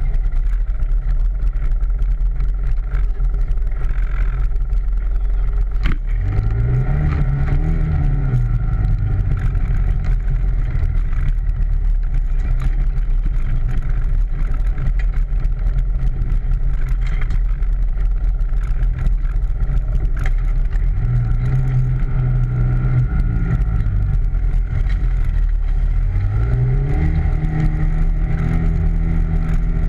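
ATV engine running, its pitch rising and falling as the throttle is opened and eased off about three times, over a steady low rumble.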